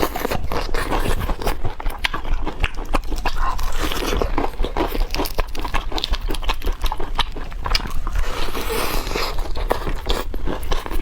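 Close-miked chicken being bitten and chewed, with dense, irregular crunching and crackling throughout.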